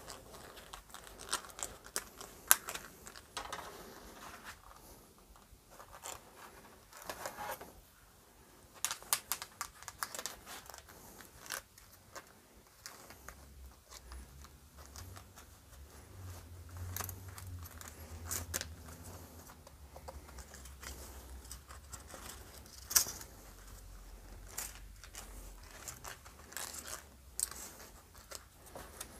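Flat steel recoil spring of a chainsaw pull starter being wound by hand into its plastic housing: scattered small metallic clicks and scrapes.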